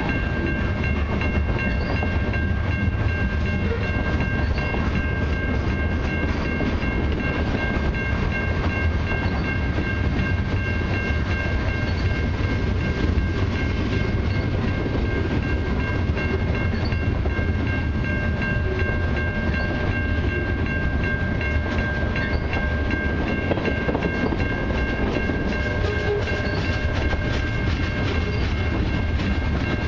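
Freight cars of a long mixed freight train (covered hoppers, then tank cars) rolling steadily past at a grade crossing: a constant deep rumble with dense clatter of wheels over the rails. A steady high-pitched ringing tone sounds throughout.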